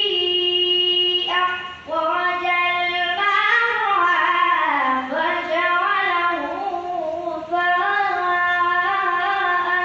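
A boy reciting the Quran in a melodic, chanted style (tilawat). His voice holds long, steady notes and turns them in slow ornamented glides, breaking off briefly twice.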